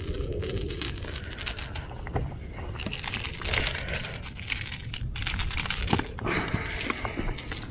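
Light metallic clinking and jingling of fishing pliers against a hard-bodied lure's hooks as a small white bass is unhooked, in several short clusters of quick clicks, busiest in the middle.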